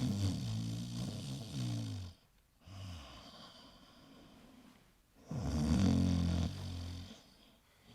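A man snoring heavily: two long snores of about two seconds each, with a short weaker breath between them. The snoring is loud enough to be heard two floors away.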